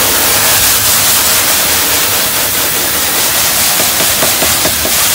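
Garden-hose spray nozzle on a mist setting, hissing steadily as the water spray hits a screen-printing screen's mesh, wetting the exposed emulsion so the stencil areas soften before washout.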